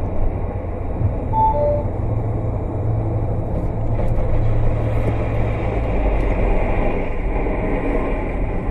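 In-cabin road and engine rumble of a car at highway speed, recorded by a dashcam. About six seconds in the rumble shifts lower as the car brakes and slows.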